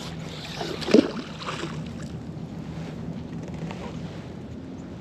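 A magnet fishing magnet on its rope cast into a river, hitting the water with a sharp splash about a second in, followed by wind on the microphone and a low steady hum.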